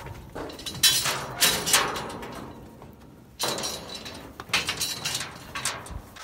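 Steel cattle chute panels clanging and rattling as heifers shove against them, in two clusters of loud metallic bangs, about a second in and again about three and a half seconds in.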